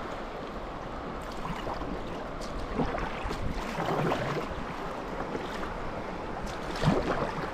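Kayak paddle strokes splashing in a fast-flowing river over a steady rush of moving water, with a few sharper splashes and some wind on the microphone.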